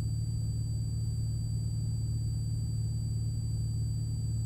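Steady low drone of a Cessna 182RG's Lycoming O-540 six-cylinder engine and propeller in cruise, heard in the cockpit, with a faint steady high-pitched electrical whine.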